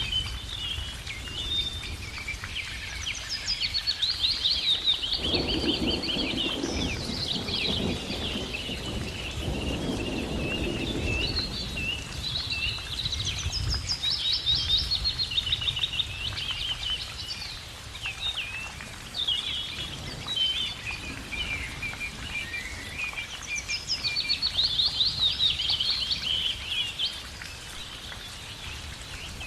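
Birds singing in rapid trills and chirps over a steady patter of rain, with a low rumble through the first half that fades out.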